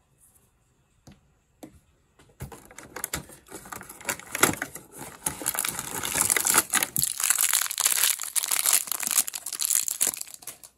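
Cardboard calendar door pried open and a crinkly plastic wrapper crumpled and torn open by hand: a couple of light clicks, then dense crackling and crinkling from about two seconds in, lasting until just before the end.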